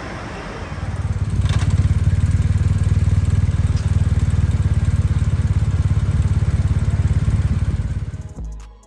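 A loud engine running steadily with a low, fast-pulsing rumble that starts about a second in and stops near the end.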